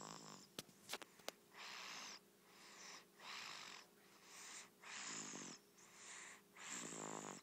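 A young child snoring softly in sleep: slow, even breaths as soft rushes, a few with a low buzzing snore on the breath. A few faint clicks about a second in.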